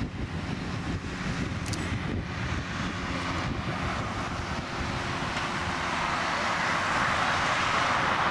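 Twin IAE V2500 turbofan engines of an Airbus A320-232 at takeoff power as the airliner rolls down the runway: a steady jet rush that gets gradually louder, most of all in the last few seconds.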